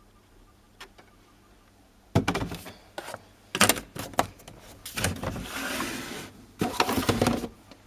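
Handling noises from a front-loading washing machine: a small click, then from about two seconds in a run of sharp knocks and clatters, with a stretch of rustling in the middle.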